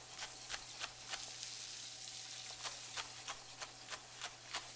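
Chef's knife chopping Swiss chard on a wooden cutting board: a run of sharp taps, about three a second, over a faint steady sizzle from a pan on the stove.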